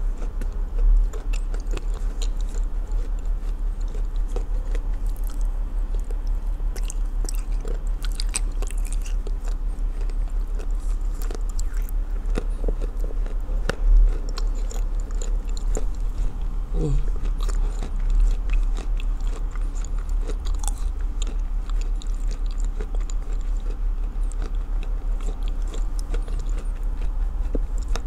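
Close-up chewing and crunching of a mouthful of soaked edible clay, with many small crisp crackles as the wet chunks are bitten and ground.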